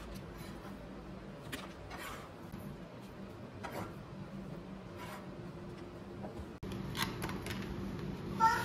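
Soft clicks and rustles of boiled meat pieces being handled and dropped into plastic takeaway containers, over a steady low hum, with the plastic lid handled near the end. A child's singing voice starts just at the end.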